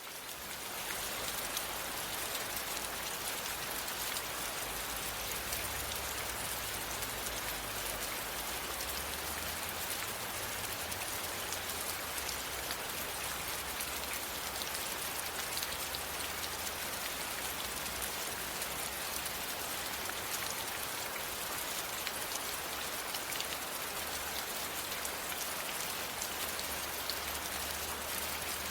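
Steady rain falling: a dense, even hiss full of the fine patter of individual drops. It swells in during the first second, then holds constant.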